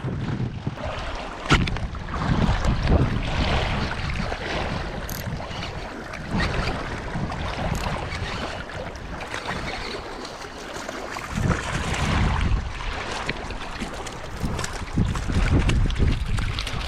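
Wind buffeting the microphone on open water, a gusty rumble that swells and fades, with boat and water noise beneath it.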